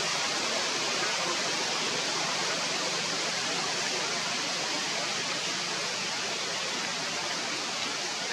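A steady, even hiss with no distinct events, its level unchanging throughout.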